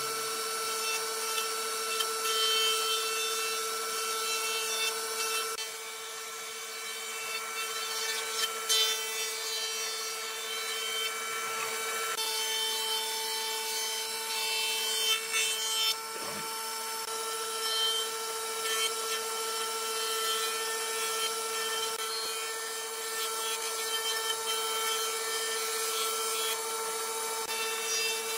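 Jointer running with a steady machine whine while boards are pushed across its cutterhead, which planes the wood with a rasping cut. The cutting noise rises and falls as each board is fed through.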